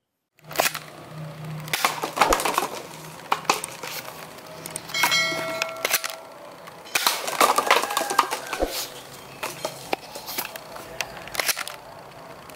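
Nerf Mega Talon foam blaster being handled, primed and fired: a run of sharp plastic clicks and knocks at irregular intervals, with a brief ringing tone about five seconds in.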